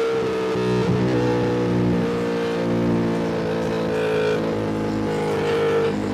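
Ducati Panigale V2's V-twin engine running under way, holding fairly steady revs with small shifts in pitch.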